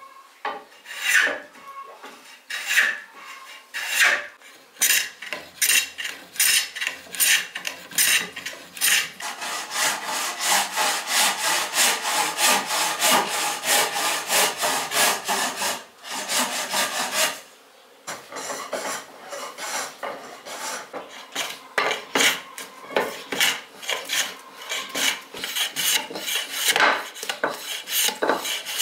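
Hand tools working a wooden axe handle. First come spaced scraping strokes of a drawknife shaving the stick. About a third of the way in, a bow saw cuts the stick with quick back-and-forth strokes. After a brief pause the shaving strokes return.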